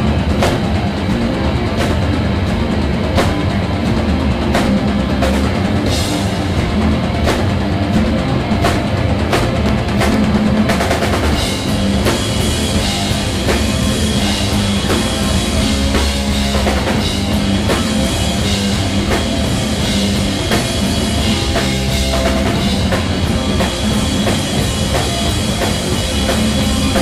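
Heavy rock band playing live: drum kit, distorted electric guitar and bass guitar. About eleven seconds in, the cymbals open up and the sound grows denser.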